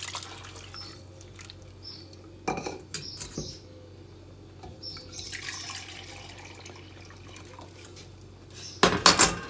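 Warm water splashing as it is poured from a measuring cup into a clay pot of rice, with light knocks of kitchenware and another stretch of pouring water in the middle. A short, loud clatter of kitchenware comes near the end.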